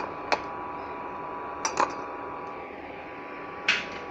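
A handful of sharp clicks and clinks as a plastic food container and a stainless-steel lunch box are handled and set down: a pair just under two seconds in, and a longer scrape-like knock near the end. A steady hum runs underneath.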